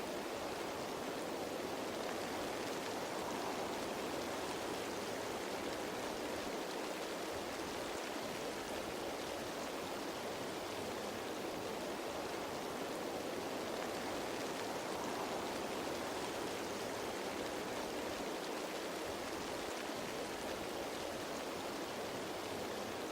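Steady rain falling on leaves, an even hiss with no single drops standing out.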